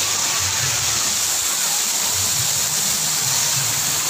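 Steady rush of running water, unbroken and even in level.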